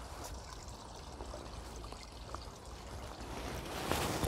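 Pond water trickling and splashing around a landing net held in the water while a large hooked crucian carp is played, growing louder near the end.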